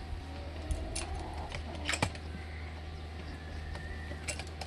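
Saw chain and 20-inch guide bar clinking as they are handled and fitted onto the chainsaw's powerhead: a few sharp metallic clicks and jingles, the loudest about two seconds in.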